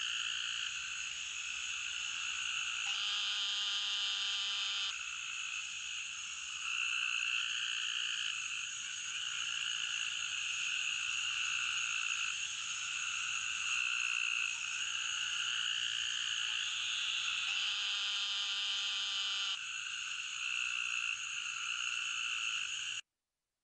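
Eastern narrow-mouthed toad calling: two drawn-out nasal buzzes ("bzzz"), each about two seconds long, a few seconds in and again late on. Behind them runs a steady chorus.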